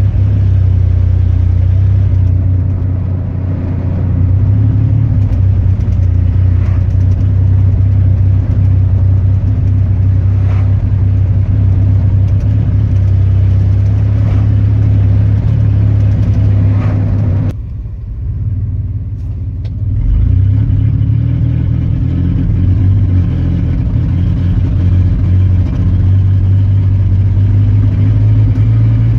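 Chevrolet 4.3-litre V6 engine running steadily with a misfire. About two-thirds of the way through, the sound drops and thins out for a couple of seconds, then returns.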